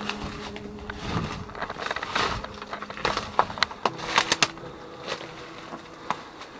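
Irregular clicks and crunches, like footsteps on debris-strewn floors, with a dense cluster about three to four and a half seconds in. Underneath is soft background music with held notes that change partway through.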